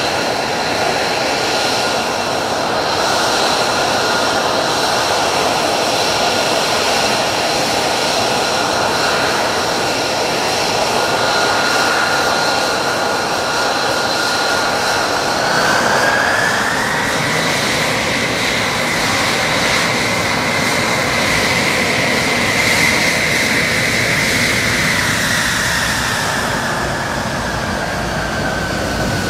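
F-35's Pratt & Whitney F135 jet engine running on the ground: a steady whine over a dense rushing noise. About fifteen seconds in the whine rises in pitch as the engine spools up, holds, then eases back down near the end.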